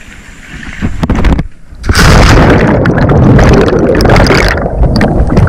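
Action camera plunging into river water about two seconds in: a sudden loud splash, then a dense rushing, bubbling churn of water over the submerged camera.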